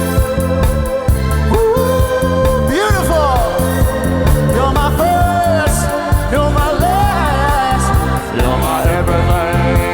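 Soul music with a steady beat, and a male singer's wordless vocal runs that slide up and down over it.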